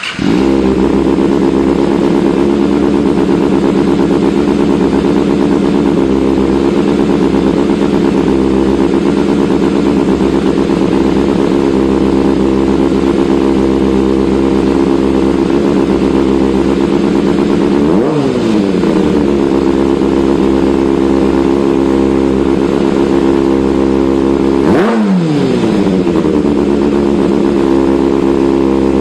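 Kawasaki ZX-25R's 250 cc inline-four running through an Austin Racing aftermarket exhaust. It comes in suddenly, holds a steady engine speed, and gives two brief throttle blips that swing the pitch, one past the middle and one near the end.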